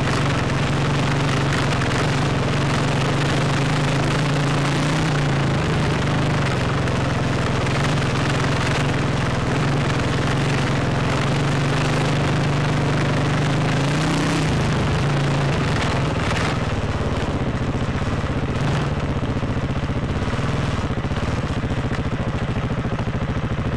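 Dirt bike engine running steadily under the rider, heard from a helmet-mounted camera with a heavy rush of wind noise. The engine note rises briefly about two-thirds through, then drops and becomes less even as the bike slows.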